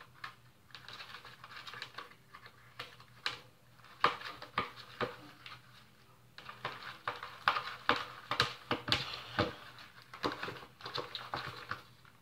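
Borax slime being stirred and scraped in a plastic container with a plastic utensil: irregular sticky clicks, taps and short scrapes, as the slime is mixed until it stops sticking to the container.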